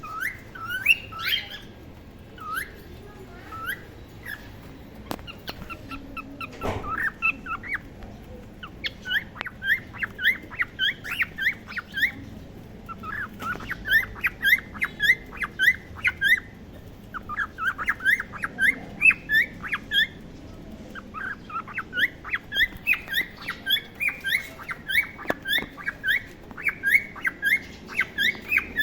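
A colony of cockatiels calling, a rapid stream of short rising chirps. The chirps are sparse at first, then from about a third of the way in they thicken into a dense, overlapping chorus.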